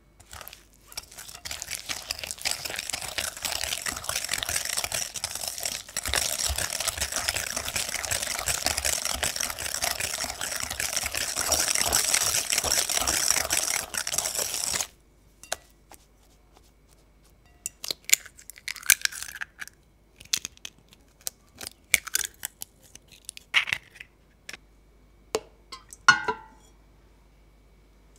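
Wire whisk beating softened butter and egg in a glass bowl: a fast, continuous scraping swish that stops suddenly about fifteen seconds in. Scattered light clicks and taps follow.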